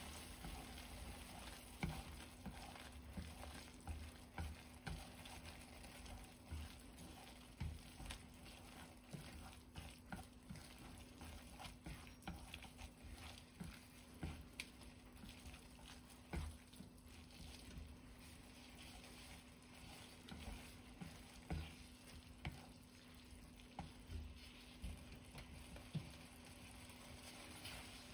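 Chopsticks stirring saucy instant noodles in a non-stick pan, with frequent irregular clicks and taps of the chopsticks against the pan over a soft wet sizzle. A faint steady hum runs underneath.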